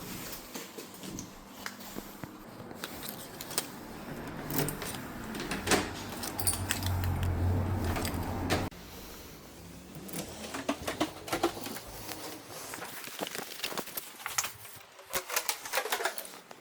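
Keys and lock hardware being handled: irregular metal clicks, rattles and light knocks, with a short low hum in the middle and an abrupt change in the sound about halfway through.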